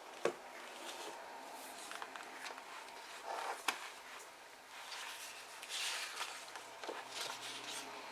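Pages of an old book being turned by hand: paper rustling and swishing, with two sharp taps.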